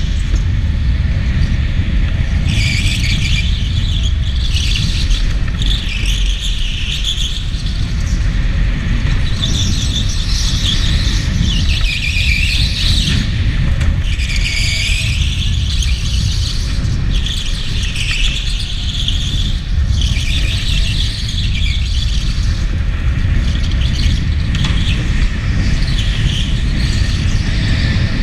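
Electric go-kart's tyres squealing on a smooth concrete floor in repeated one- to two-second bursts through the corners, over a steady low rumble from the kart at speed.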